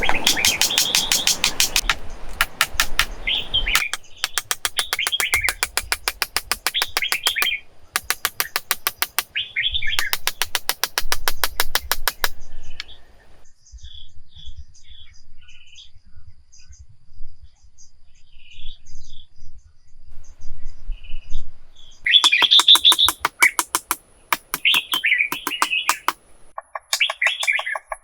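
Birds chirping and calling, with long runs of fast rattling pulses. The calls fall to faint scattered chirps for several seconds in the middle and come back loud near the end.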